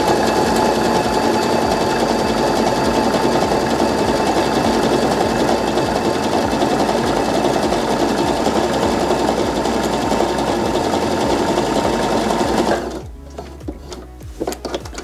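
Baby Lock Joy sewing machine running steadily as it sews a triple stretch stitch. It stops abruptly about 13 seconds in, followed by a few light clicks.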